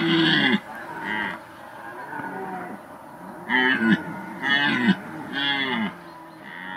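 Red deer stag roaring during the autumn rut: a series of separate bellowing calls. One loud call at the start is followed by quieter ones, then three loud calls come close together a little past halfway, and a fainter one near the end.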